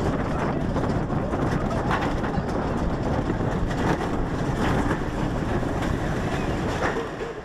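Mack bobsled coaster car running through its steel trough: a steady rumble with wind noise and a few sharp knocks, fading out near the end.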